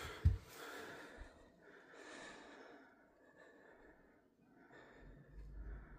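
Faint breathing close to the microphone, with one short low thump just after the start.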